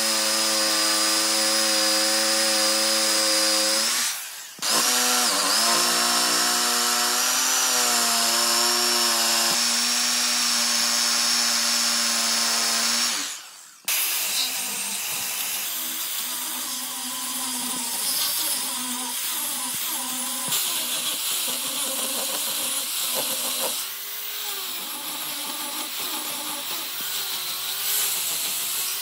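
An electric power tool's motor running at a steady high speed, cutting out briefly about four seconds in and again near the middle. After the second stop it runs on quieter, with a wavering pitch.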